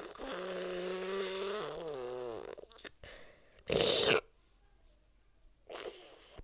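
A person's drawn-out, breathy vocal noise, about two and a half seconds long, dropping in pitch at the end. It is followed by a short, loud puff of breath on the microphone, the loudest sound here, and a fainter puff near the end.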